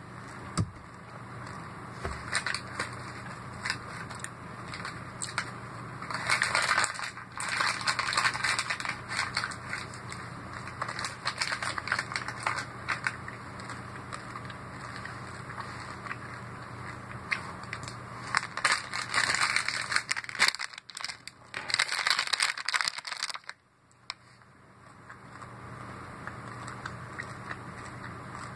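Crinkling and crackling noises in two long spells, about six to nine seconds in and again from about eighteen to twenty-three seconds in, over a low steady hum.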